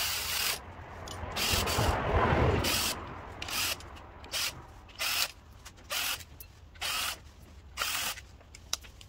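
Power driver with a 10 mm socket backing out the timing chain cover bolts. Its run ends just after the start, a rougher, louder stretch of noise follows around two seconds in, then a string of short bursts about a second apart.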